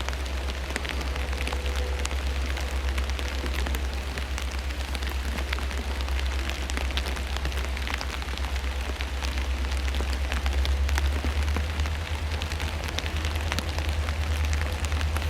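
Steady heavy rain falling, with many individual raindrops ticking sharply close by and a constant low rumble underneath.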